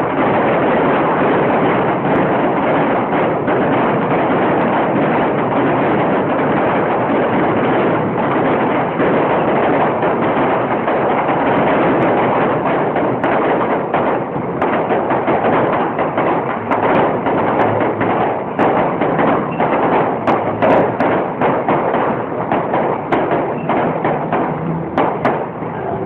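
Fireworks finale: a dense, continuous barrage of bangs and crackling. About halfway through it thins out into separate cracks and pops.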